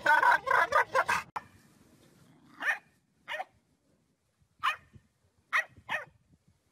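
A dog making a rapid run of odd, pitched yelping noises that stops suddenly about a second and a half in. After it come six short, separate dog sounds with quiet gaps between them.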